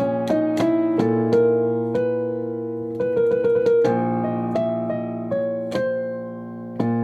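Keyboard music: a melody of single notes over held lower notes, each note struck sharply and left to fade.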